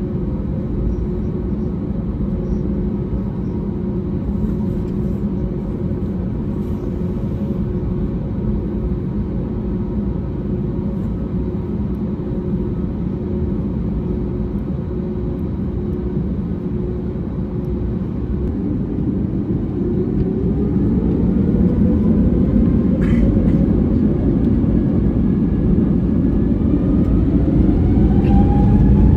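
Cabin sound of an Airbus A321-200 airliner: a steady engine hum and rumble while it taxis. About two-thirds of the way through, the engines spool up to takeoff thrust, with a whine climbing in pitch as the rumble grows louder. A single brief click comes during the spool-up.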